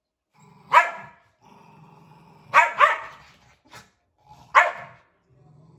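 Dogs playing: low growling in stretches, broken by four sharp barks, one about a second in, two in quick succession near the middle, and one more near the end.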